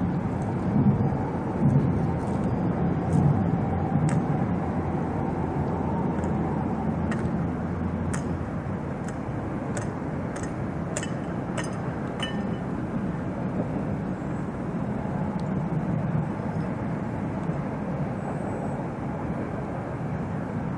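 Articulated low-floor tram moving slowly through the terminus turning loop: a steady rumble of running gear, with a series of sharp clicks from the wheels over the track in the first twelve seconds or so.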